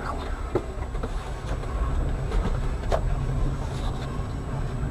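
Steady low rumble of a vehicle, with a couple of faint knocks, about a second and three seconds in.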